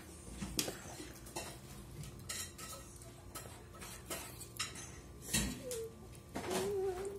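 Metal spoon and fork clinking and scraping against dinner plates while eating, a scattered series of sharp clicks. A short wavering voice-like sound comes near the end.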